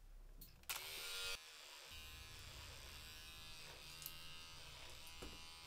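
A faint steady electric buzz with a low hum, after a brief louder whirr about a second in.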